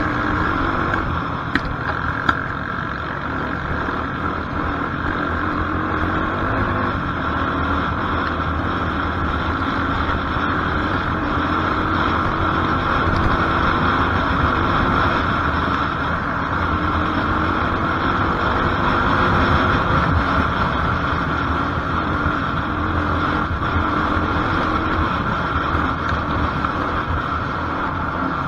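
Quad bike engine running as the ATV rides over rough dirt and grass, its pitch rising and falling a little with the throttle. Two sharp knocks come about two seconds in.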